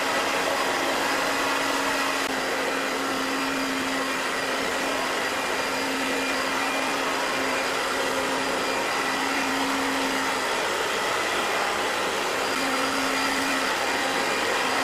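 Handheld hair dryer running steadily, a continuous rush of air with a low motor hum, blowing onto clear PVC film to heat and soften it.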